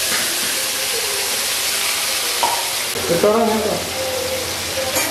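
Chopped onions frying in hot oil in a metal kadai: a steady sizzling hiss as they begin to sauté.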